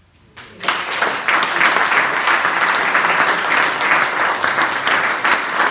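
Audience applause: many people clapping, starting suddenly about half a second in and keeping up steadily.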